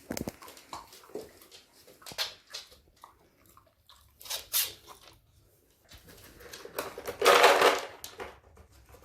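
A plastic bottle feeder toy filled with dry dog kibble being nosed and pawed across the floor by a dog: scattered clicks and knocks as the bottle moves and the kibble rattles inside. A louder, longer rattling burst comes about seven seconds in.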